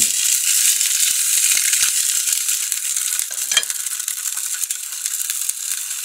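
Fish sausage frying in a little oil in a nonstick pan over medium heat: a steady high sizzle with scattered small crackles.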